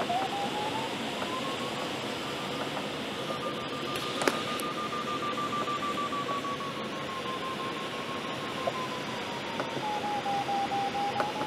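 A glider's electronic variometer sounding one unbroken tone whose pitch slides up over the first few seconds, sags to its lowest about ten seconds in and rises again, following the glider's climb and sink. Steady airflow rush on the canopy runs underneath, and there is one sharp click about four seconds in.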